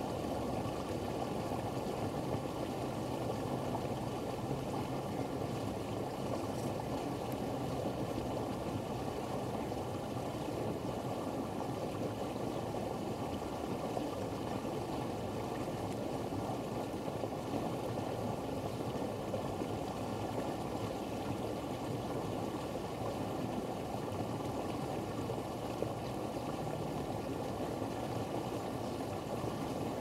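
Steady, even outdoor background noise, strongest in the low and middle range, with no bird calls or other distinct sounds standing out.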